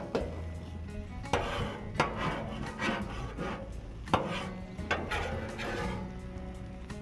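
Metal spatula scraping and clanking on a steel flat-top griddle as toasted buns are lifted off it, about half a dozen sharp scrapes and knocks, over background music.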